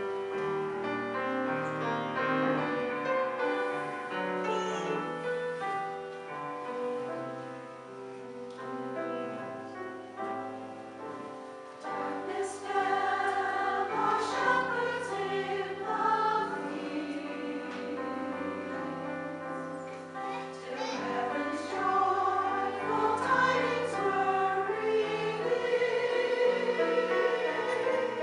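A choir singing a slow piece in sustained harmony, swelling louder about twelve seconds in and again near the end.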